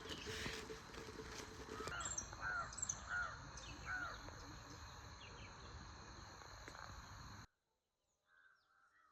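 A crow cawing four times in quick succession over a steady high-pitched whine, after some rustling; the sound cuts off suddenly near the end.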